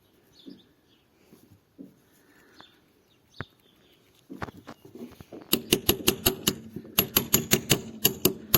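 Faint handling clicks, then from about halfway through a fast run of light hammer taps on metal, about five a second: the brushcutter's keep plate being tapped down onto its new roll pins, a tight tap fit.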